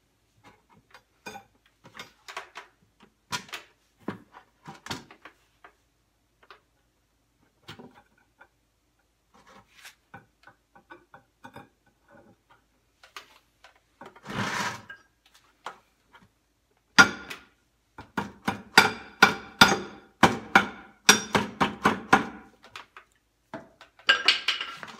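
Small clicks and knocks from steel rebar and wire being handled in a plastic bucket as the wire is fastened around the rebar. A short scrape comes midway, then a run of sharp metallic taps with a brief ring, several a second, for about six seconds.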